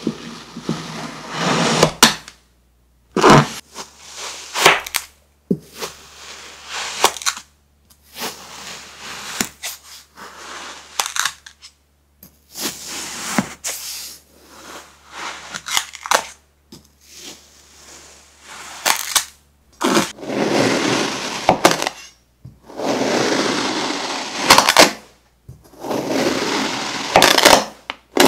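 Knives slicing down through a packed block of kinetic sand: a cut every second or two, each a gritty crunching hiss with sharp cracks as the sand slab breaks apart, with short silences between cuts.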